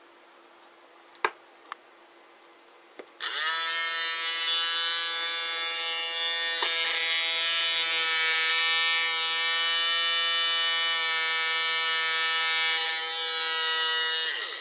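A few clicks, then the toy submarine's clip-on battery propeller motor starts and runs with a steady high whine for about eleven seconds. It winds down with a falling pitch as it is switched off near the end.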